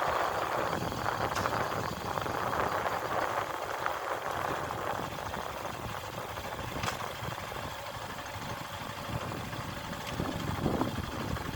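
Travelling vehicle on the move: steady running and wind noise on the microphone, swelling and easing a little.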